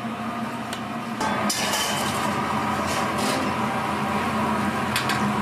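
Hot oil sizzling and crackling in a deep fryer as battered food fries, with a few clinks of a metal strainer, over a steady machine hum; the sizzle comes in about a second in.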